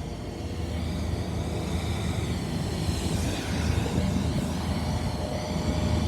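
Jet airliner engines running loud: a steady rumbling rush that grows gradually louder, with a faint steady whine coming in about four seconds in.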